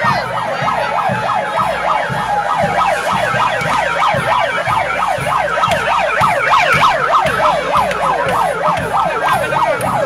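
A yelping siren, its pitch sweeping up and down rapidly, about three to four times a second without a break, with low thuds underneath.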